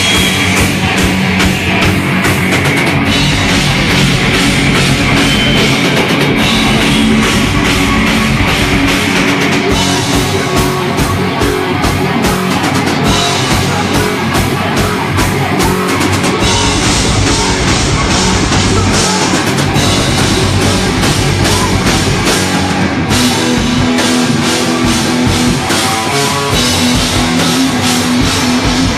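Live rock band playing loudly and continuously: electric guitar over a full drum kit with cymbals.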